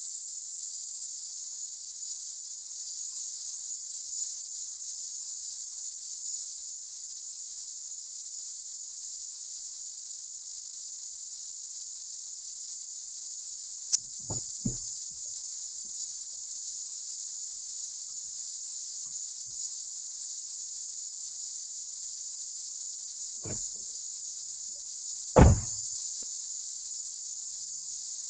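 Steady high-pitched hiss of a phone recording streamed through TrackView, with no voices. It is broken by a few brief dull knocks about halfway through and a louder thump near the end.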